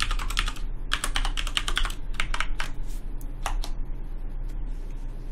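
Computer keyboard being typed in quick runs of key clicks, entering a password. A single key press about three and a half seconds in is followed by quiet, over a steady low hum.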